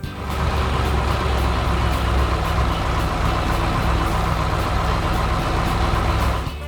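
Heavy vehicle engine running steadily with a deep low rumble, starting abruptly and cutting off just before the end.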